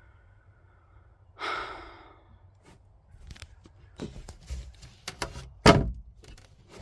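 A breathy sigh about a second and a half in, then a run of knocks and clicks as a fitted piece is pushed and worked by hand against a lip, with one louder thump near the end.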